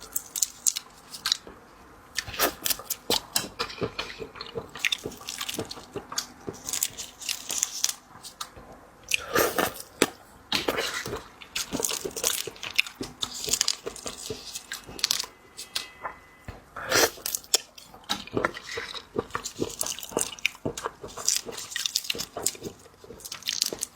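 Close-miked eating of raw sweet shrimp: wet chewing, mouth smacks and crackling clicks, on and off throughout.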